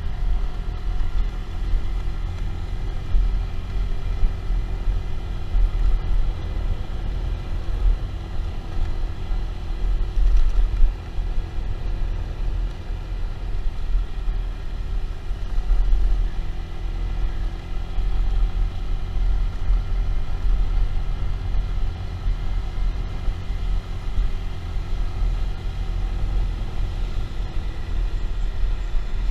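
Motorcycle running on the road, its engine a faint steady hum under heavy low wind rumble on the microphone.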